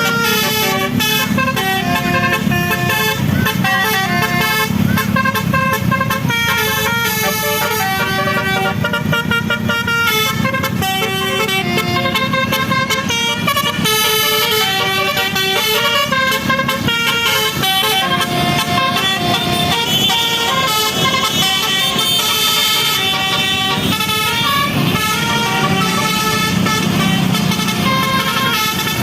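A bus telolet horn, the multi-tone musical air horn of the QQ Trans bus Winspector, tooting a melody as a fast, unbroken run of notes that change pitch every fraction of a second. A low rumble runs underneath.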